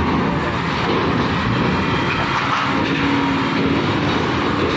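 A Hino diesel cargo truck's engine running as the truck drives slowly past close by, rolling off the ferry's steel ramp.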